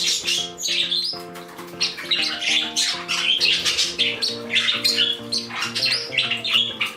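A flock of pet cockatiels, budgies and other small parrots squawking and chirping in many short, sharp calls over background music with steady held notes.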